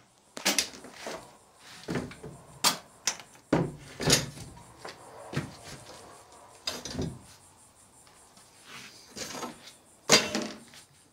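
A thin wooden board being shifted and set down on a wooden floor: irregular knocks and short scrapes of wood on wood, the loudest knock near the end.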